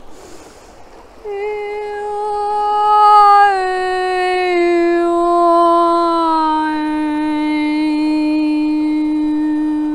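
A woman's voice toning wordlessly. An audible in-breath is followed by one long held note that steps down in pitch about three times, its vowel colour shifting, then holds on the lowest note.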